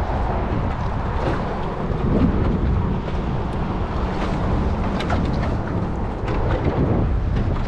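Small boat's outboard motor running steadily while under way, mixed with wind buffeting the microphone.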